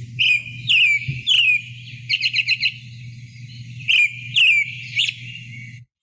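American robin singing: caroling phrases of clear whistled notes, each dropping in pitch, with a quick run of short notes in the middle, over a faint low hum. The song stops abruptly near the end.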